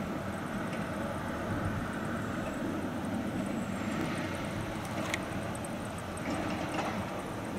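Vossloh G1000 diesel-hydraulic shunting locomotive running steadily as it moves slowly along the track, its engine a steady low sound with no change in pitch.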